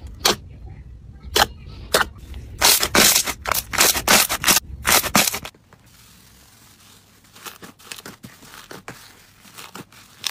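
Slime being pressed and folded by hand, giving a rapid run of sharp pops and clicks as air pockets burst. About halfway through it drops to a much softer, scattered crackle as fingers work a porous, bubbly slime.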